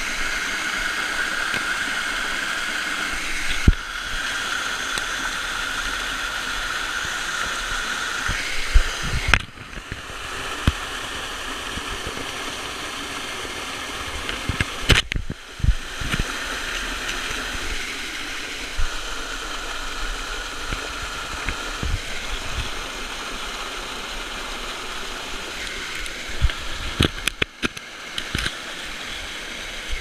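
Steady rush of water from a small waterfall and stream, heard close up. A few sharp knocks and bumps cut through it, a little quieter after about ten seconds.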